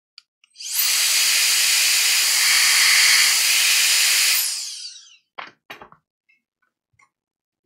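Cordless handheld electric air duster blowing a steady rush of air for about four seconds, its fan whine falling as it spins down at switch-off. Two light knocks follow.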